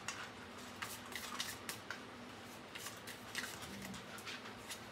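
Tarot cards being shuffled and handled, making soft, irregular flicks and taps.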